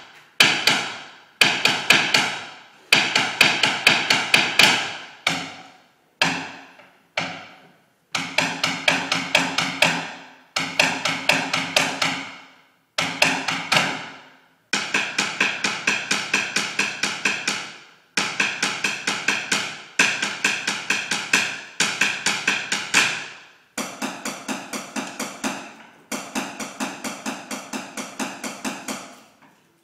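Many drumsticks rapping on the hard steps of a stepped structure, with no drums. The taps come in fast runs of a second or two, each starting loud and tailing off, with short gaps between.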